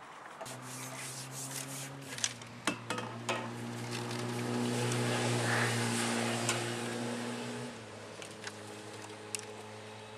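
A steady low mechanical hum from a motor, which shifts pitch about two seconds in, swells with a hiss in the middle and drops back near the end, over scattered clicks and taps of handling as a small roach is unhooked.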